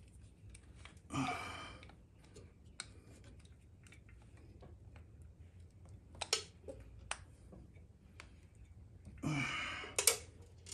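Light metal clicks and taps as the timing chain and cam sprocket of a Polaris ATV engine are worked into place by hand. There are two heavy breaths of effort, about a second in and again near the end.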